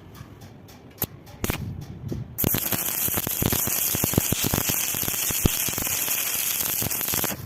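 Stick (arc) welding: after a couple of sharp clicks, the arc catches about two and a half seconds in and crackles and hisses steadily with many small snaps, then cuts off suddenly near the end.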